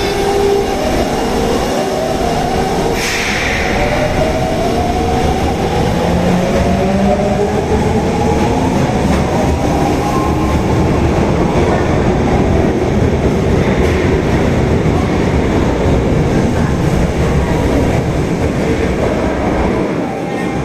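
Osaka Metro Tanimachi Line subway train pulling away: its motors whine in several tones that rise together in pitch over about ten seconds, then it runs on at speed with a steady rumble from the rails.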